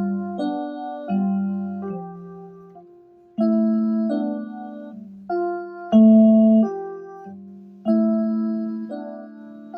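Akai MPK Mini Play's built-in piano-like sound played as a slow run of chords, each struck and left to fade, a new chord about every second.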